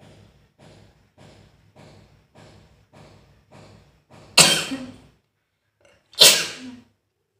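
A person's quick, short breaths, about one and a half a second, building up to a sneeze, then two loud sneezes about two seconds apart, the first a little over halfway through.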